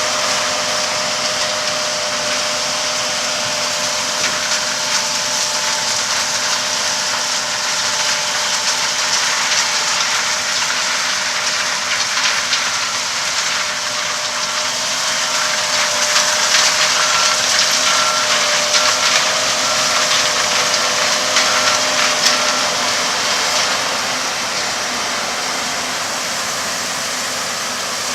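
Corn-harvesting farm machinery running steadily: a loud, even mechanical noise with a constant whine, swelling a little in the middle.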